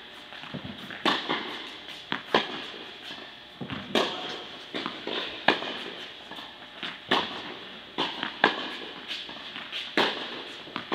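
Tennis rally on an indoor court: sharp pops of the ball off racket strings and court, about one every second or so, each with a short echo from the hall.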